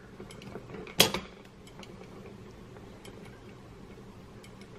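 Hand-turned 2006 Kawasaki ZX6R dog box transmission, with its gears and engagement dogs ticking faintly and irregularly as the shafts spin, and one sharp metallic clack about a second in as it is shifted from first into second gear.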